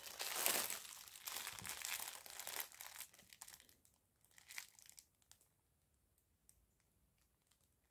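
Clear plastic bag around a pack of embroidery floss skeins crinkling as it is handled, dying down after about three seconds to a few faint rustles and then near silence.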